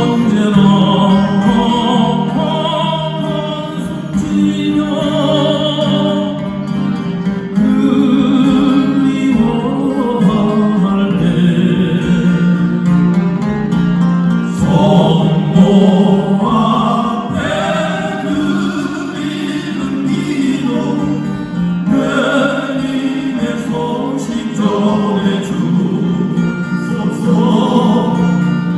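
Acoustic guitars playing with a group singing a slow song.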